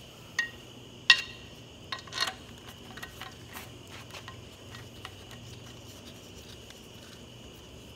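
A screwdriver clinks and taps against the shims and brake housing of an Allis-Chalmers 190XT tractor as the shims are nudged up. There are three sharp metal clinks in the first couple of seconds, the loudest briefly ringing, then only light ticks. A steady high-pitched whine runs underneath.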